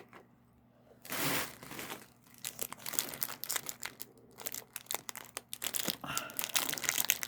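Packaging crinkling as it is unwrapped by hand: a short rustle about a second in, then dense crackling from about two and a half seconds on.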